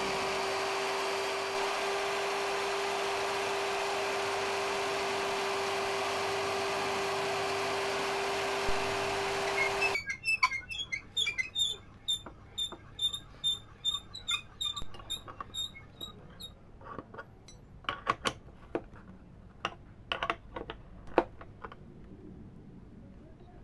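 Hand-drill motor of a DIY milling machine running steadily with a single whine while its bit cuts into wood, stopping abruptly about ten seconds in. Then comes a run of regular squeaks, two or three a second, for about six seconds, followed by scattered clicks and knocks.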